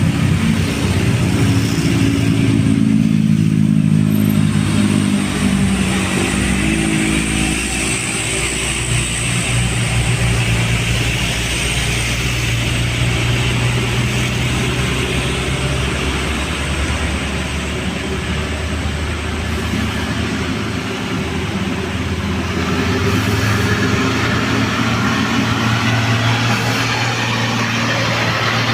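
Heavy truck's diesel engine working hard on a steep uphill climb, its note shifting in pitch and growing louder again near the end.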